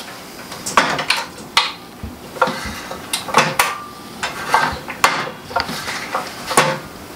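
Metal clanks, clicks and rattles from a new Evolution 15-inch metal-cutting chop saw's parts being handled and moved by hand, a dozen or so sharp knocks spread unevenly.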